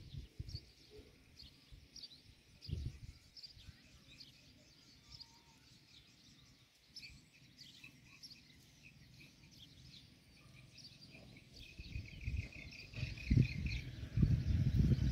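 Small birds chirping over a faint rural background, with a fast trill of repeated notes about two-thirds of the way in. Near the end, louder low rumbling thumps come in.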